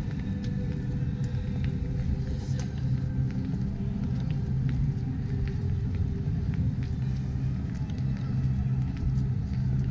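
Outdoor downtown street ambience: a steady low rumble with scattered light clicks above it.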